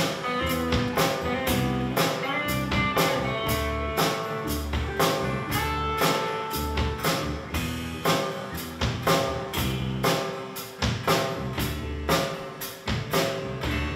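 Live band playing: electric guitars over a drum kit with bass, the drums striking a steady beat with cymbals.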